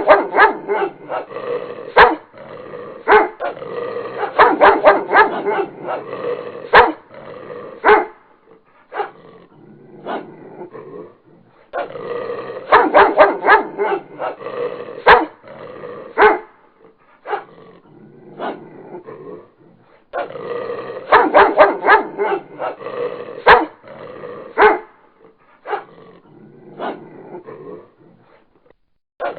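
Dog barking in rapid volleys: three loud bouts of quick barks, with quieter stretches between them.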